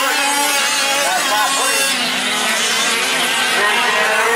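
Several 1/5-scale gas-powered RC off-road trucks racing, their small two-stroke engines revving up and down at different pitches over one another.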